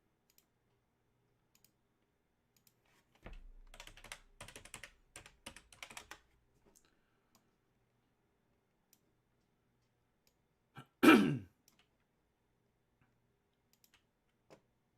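Computer keyboard typing in quick bursts for about three seconds. Near the end there is a single short, loud vocal noise that falls in pitch.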